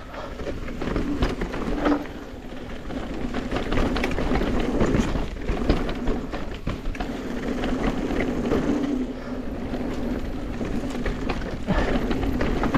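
Mountain bike riding over a bumpy dirt trail: tyre noise with a constant clatter of short knocks and rattles from the bike hitting bumps.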